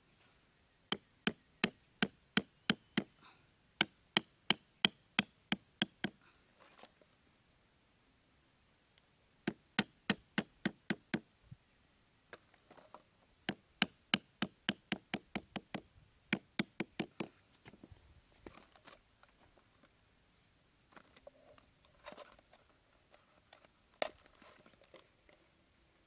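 Thin wooden stakes being hammered into dirt with a hatchet: runs of sharp knocks, about three a second, in three bursts, then fainter scattered taps and handling near the end.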